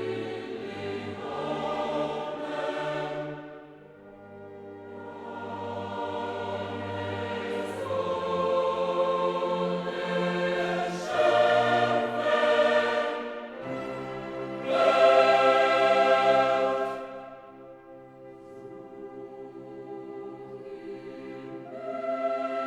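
Choral background music: voices singing long held chords that swell and fade, loudest about two-thirds of the way through.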